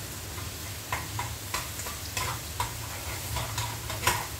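Eggs frying in a pan with a light sizzle, while a plastic spatula taps and scrapes against the pan about eight times, the loudest tap near the end. A low steady hum runs underneath.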